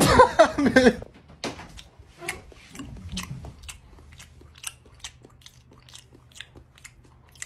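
Person chewing something crunchy close to the microphone, about three crunches a second, after a brief burst of voice at the start.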